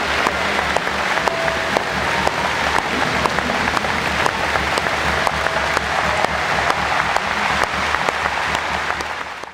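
Large crowd applauding steadily in a sports hall, a dense patter of many hands clapping that dies away right at the end.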